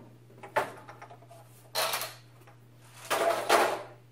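Empty plastic housing of a phone-system unit being handled and cleared off a wooden tabletop. There is a sharp knock about half a second in, then two longer clattering bursts about two and three seconds in.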